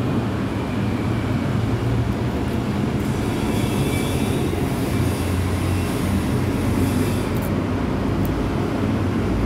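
Steady low rumble of a running engine close by, holding a deep even hum throughout.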